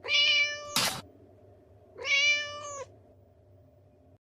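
Domestic cat meowing twice, each meow under a second long and about two seconds apart, with a sharp click just after the first.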